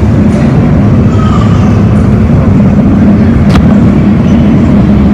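Jet airliner engines running with a loud, steady low rumble and a steady hum, with a single sharp click about three and a half seconds in.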